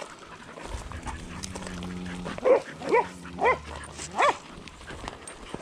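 Blue Lacy herding dog barking at Longhorn cattle, four short barks in the second half. Before the barks comes a low, drawn-out sound.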